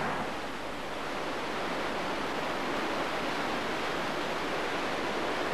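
Steady, even rushing of a wide braided river, with no distinct events.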